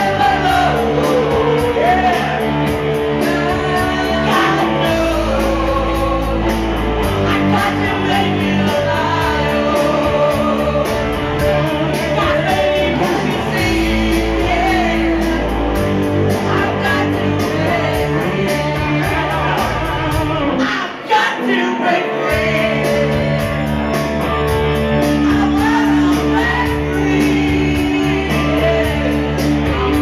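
Karaoke duet: a man and a woman singing into one microphone over an amplified rock backing track with guitar. The low end of the backing drops out for a moment about two-thirds through.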